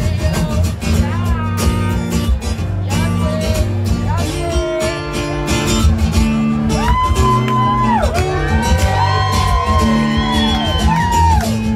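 Live acoustic guitar playing an instrumental break: a steady low accompaniment with a lead melody of notes that slide up, hold and fall away, busiest in the second half.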